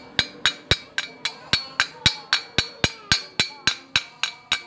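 Chipping hammer knocking slag off a fresh stick-weld bead on thin steel square tube: quick, even metallic taps, about three to four a second, each with a brief ring.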